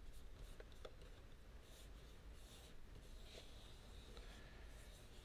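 Faint rustling and rubbing of vinyl wrap film as a hand smooths it down onto a plastic fender, with a few small clicks.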